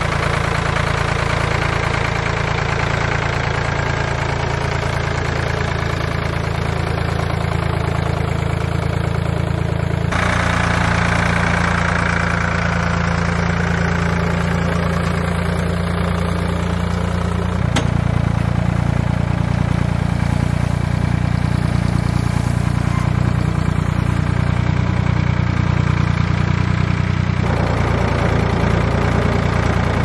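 Ford 3000 tractor engine running steadily as the tractor drives. Its tone changes abruptly three times, about ten seconds in, just past the middle and near the end.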